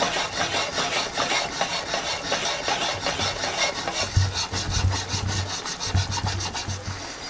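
Thick, creamy curry gravy simmering in a frying pan around chicken meatballs, bubbling and spitting in a rapid, dense crackle.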